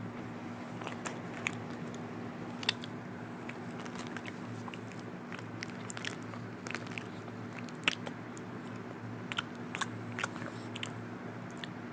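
Scattered small clicks and crunchy crackles close to the microphone, irregular in timing, over a steady low hum.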